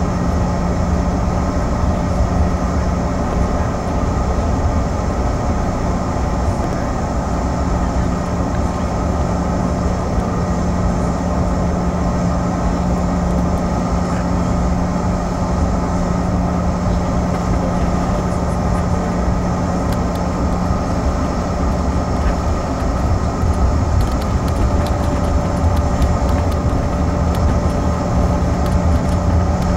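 Steady cabin drone of a jet airliner taxiing with its engines at idle, with a strong low hum under a broad rushing noise, growing a little louder and gaining a higher steady tone near the end.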